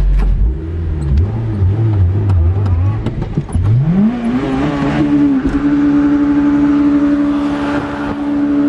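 Car engine revving: an uneven low note for about three seconds, then a quick climb to high revs, held steady through the rest.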